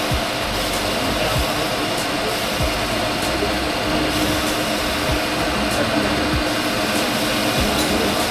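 A machine motor running steadily with a constant whir and hum, with a few faint clicks.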